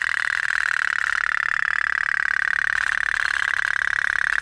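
Toy pop-pop (otok-otok) steam boat running: its little boiler, heated by a burning wick, makes a fast, even putt-putt pulsing.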